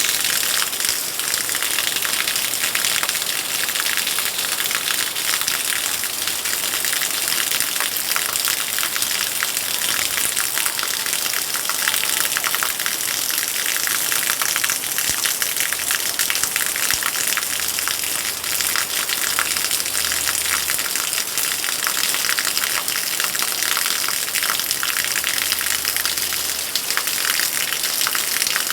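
Heavy rain pouring down steadily: a dense, unbroken hiss full of fine patter.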